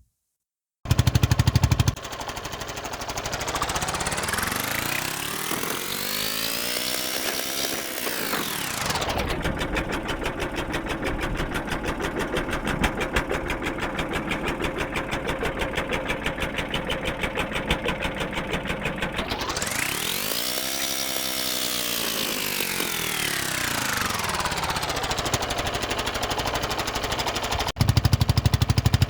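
Small boat engine running with a rapid chugging beat, its pitch rising and falling twice as it is revved up and eased back.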